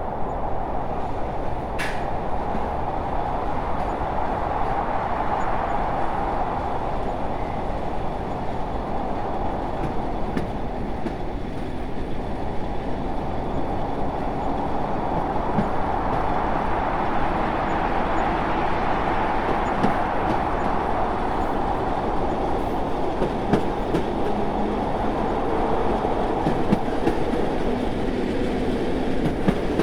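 A train running on the rails: a steady rumble that slowly swells and eases, with a few faint clicks.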